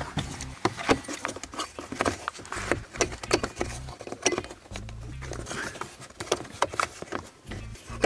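Irregular small plastic clicks, taps and scrapes of a heater-fan resistor being worked by hand into its slot in the plastic heater housing under a car dashboard.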